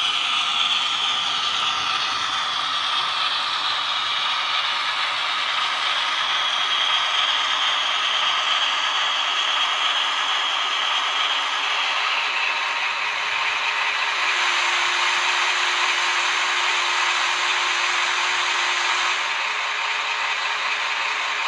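Model train running past: the motor whirs and the wheels clatter continuously over the model track. A steady tone joins in for about five seconds past the middle.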